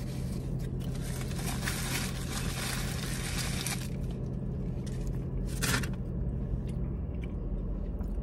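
Foil sandwich wrapper crinkling and being crumpled in the hands, densest in the first few seconds, with one short louder crackle past the middle. A steady low hum in the car cabin runs underneath and stops near the end.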